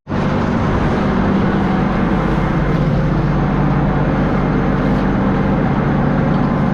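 A motor drones steadily with a constant low hum under an even rushing noise, starting abruptly.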